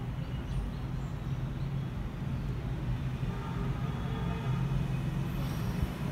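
Steady low rumble and hum of outdoor city background noise, like distant traffic.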